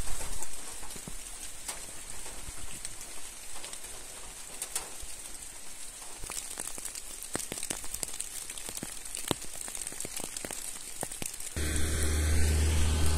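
Light rain pattering, with separate drops ticking sharply on nearby surfaces. About a second and a half before the end it cuts abruptly to a steady low hum.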